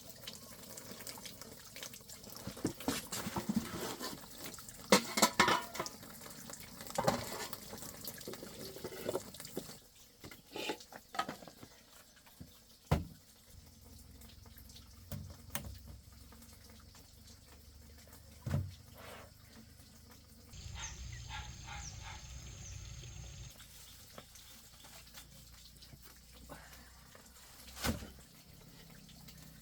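Water running and splashing, as when washing something by hand, with scattered knocks and clatters.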